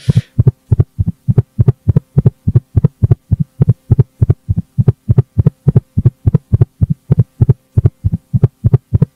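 Fast, regular heartbeat-like thumping, about three to four low thumps a second, over a faint steady hum: a horror soundtrack effect.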